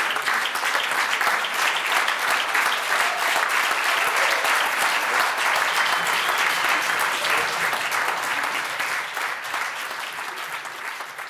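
Theatre audience applauding, a dense steady clapping that dies away near the end.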